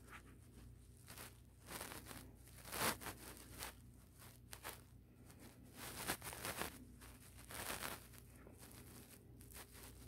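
Scratchy rustling of three-week-old kittens scrambling and clawing at a knit blanket while play-fighting, in irregular bursts, the loudest about three seconds in and again between six and eight seconds.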